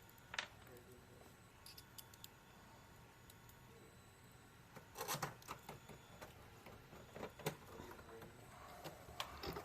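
Faint, scattered clicks and light handling taps of small objects, with a cluster of sharper clicks about five seconds in.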